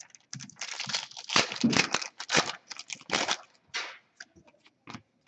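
Foil wrapper of a hockey card pack crinkling and tearing open in a dense run of loud noisy bursts lasting a few seconds, then a few soft clicks as the cards are thumbed through near the end.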